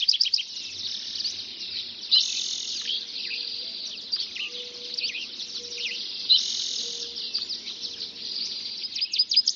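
Dawn chorus of many songbirds singing at once: overlapping high chirps, rapid falling notes and trills, swelling in brief dense bursts about two seconds in and again a little after six seconds.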